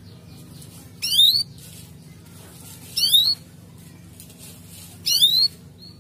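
Canary singing: three short bursts of quick rising chirps, about two seconds apart, with softer chirps between them over a low steady hum.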